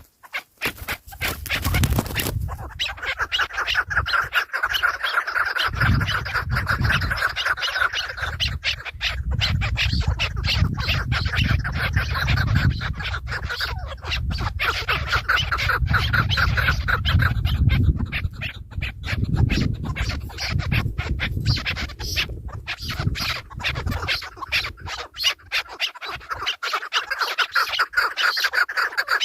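Birds calling in a rapid, continuous chatter. A low rumble runs under it for most of the time and drops away a few seconds before the end.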